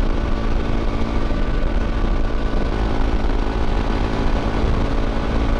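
Honda CRF250L Rally's single-cylinder engine running at a steady road speed, a constant hum over a dense low rumble.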